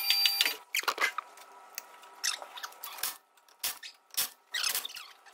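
A power impact tool rattles a wheel bolt loose and stops about half a second in. Then come scattered light clicks and knocks as the bolts and wheel are handled.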